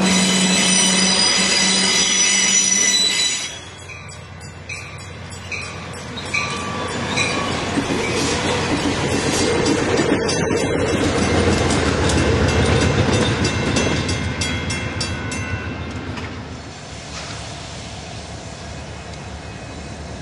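Freight cars rolling past with steel wheels squealing for the first three seconds, then cut off suddenly. A grade-crossing bell dings at an even pace as a bilevel passenger train rushes by, wheels clacking over the rail joints. Near the end comes a quieter, steady rumble of approaching diesel locomotives.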